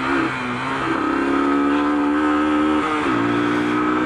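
Sinnis RS125 125cc motorcycle engine running under way, its pitch rising a little about a second in and dropping a little after three seconds in.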